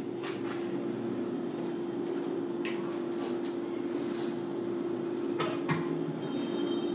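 Steady electric-motor hum from a machine in an aluminium pot workshop, with a few light clicks and knocks scattered through it.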